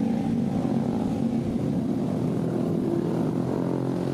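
Steady engine-like drone with an even hum.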